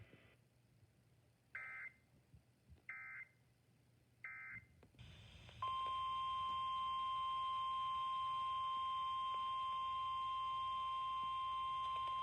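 Three short warbling digital data bursts, the SAME end-of-message codes that close an Emergency Alert System broadcast. About five and a half seconds in, a steady single-pitch NOAA Weather Radio warning alarm tone near 1 kHz begins and holds, the alert tone that comes before a new warning message.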